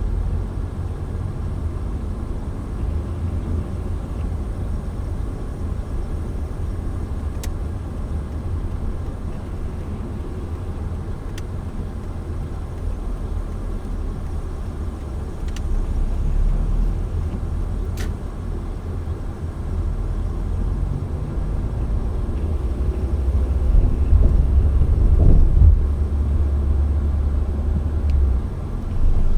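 Steady low rumble of a car driving, road and engine noise heard from inside the moving car, with a few faint clicks. It swells louder for a couple of seconds near the end.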